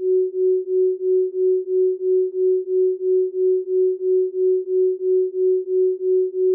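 Isochronic tone: a single mid-pitched pure tone pulsing on and off evenly, about three times a second.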